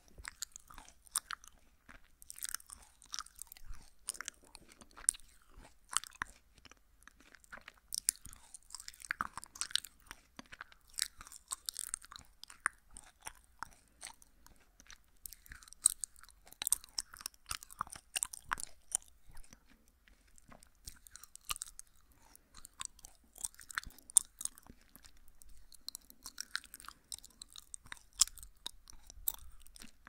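Jelly candy being chewed right at the microphone, with a hand cupped around the mouth. It makes a dense, irregular run of quick wet clicks and squishes.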